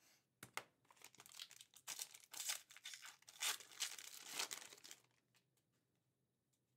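Foil wrapper of an Upper Deck Fleer Ultra Marvel trading card pack being torn open and crinkled by hand. The crackling runs in quick irregular bursts and stops about five seconds in.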